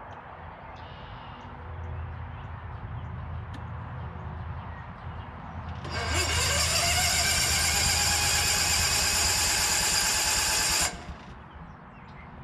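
Electric starter of a Case 1816C skid steer's gas engine whirring for about five seconds, its whine rising in pitch and then holding steady before it cuts off abruptly. The engine does not catch.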